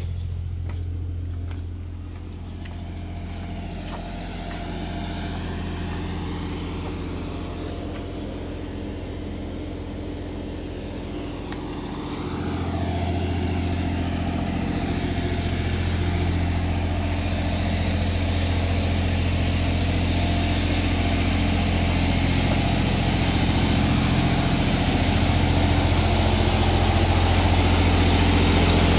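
Diesel engine idling steadily, getting louder about twelve seconds in, with a hiss building through the second half.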